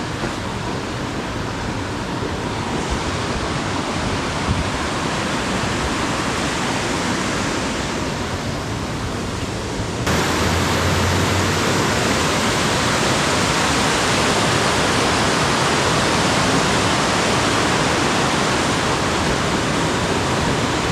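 Loud, steady rushing noise with no distinct tones, like fast-running water. About halfway through it steps up abruptly and stays steady.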